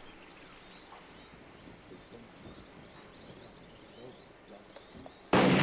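Steady drone of crickets in dry bush, with faint chirps over it; near the end a single loud bang, a hunting rifle shot, cuts in and rings off.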